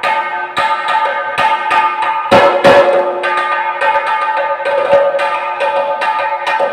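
Chenda, the Kerala cylindrical drum, beaten with sticks: a run of sharp strokes about two to three a second over a steady ringing tone, the strongest pair of strokes about two and a half seconds in.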